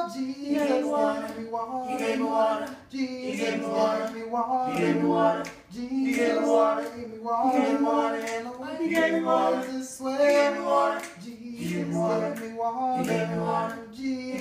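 Four boys singing together a cappella in harmony, with no instruments. They sing in short phrases with brief breaks between them.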